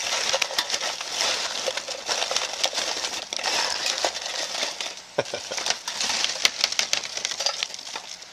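Foil food-storage pouch rustling and crackling as hands squeeze rehydrated stuffing out of it into a stainless steel pan, with many small sharp clicks.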